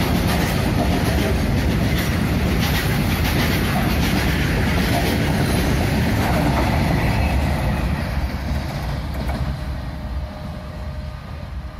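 A train hauled by WDG diesel locomotives passing close by, its wheels clattering over the rail joints. The rumble fades from about eight seconds in as the train moves away.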